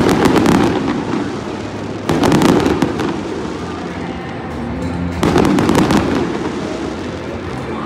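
Stadium fireworks show: aerial shells bursting in three loud volleys, at the start, about two seconds in and about five seconds in, each followed by crackling. Music plays in the background.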